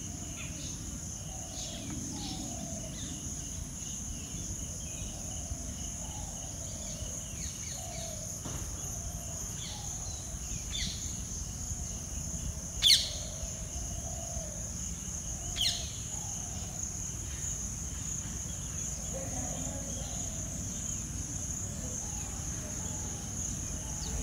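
Natural ambience of insects droning steadily at a high pitch, with scattered bird chirps. About halfway through come two loud, sharp, downward-sweeping bird calls a few seconds apart.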